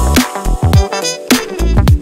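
Background music with a heavy bass line and a drum hit about every half second, the bass notes sliding downward in pitch.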